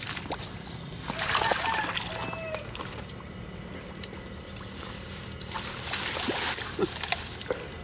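Water splashing and sloshing in two spells, about a second in and again around six seconds, with a few sharp clicks near the end.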